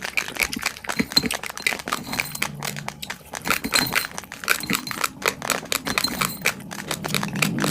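Raw basmati rice grains being chewed: a rapid, irregular run of sharp crunches and cracks.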